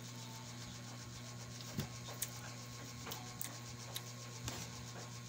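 A steady low hum with a few soft, scattered clicks and taps of a metal spoon in a bowl of rice while eating.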